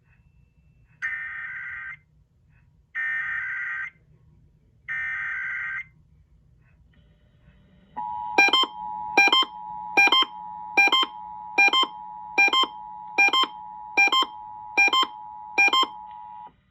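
Emergency Alert System Required Monthly Test tones: three short buzzing data bursts of the SAME header, about two seconds apart, then the two-tone attention signal, a steady dual beep held for about eight seconds with a sharper pulse repeating a little faster than once a second over it.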